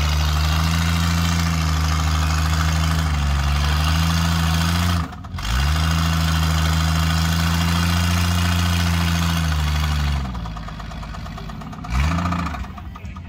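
AMC Eagle's engine held at high revs in a burnout, the tyres spinning on the wooden balance platform. The driver took the rising revs for the automatic transmission slipping. The throttle lifts briefly about five seconds in, the revs fall away near ten seconds, and there is one more short rev near the end.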